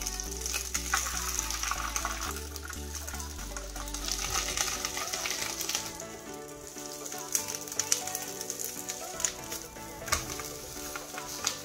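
Lempeng pisang (banana pancake) batter frying on a banana leaf in a hot pan: a steady sizzle, with a few sharp taps and scrapes from the spatula in the second half. Background music plays underneath.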